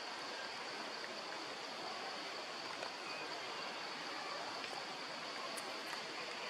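Steady outdoor background: an even rushing hiss with a constant high-pitched whine over it.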